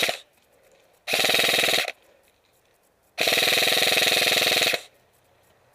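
Airsoft gun firing on full auto: the tail of one burst, then a burst of about a second and a longer burst of about a second and a half, each a fast even rattle of shots.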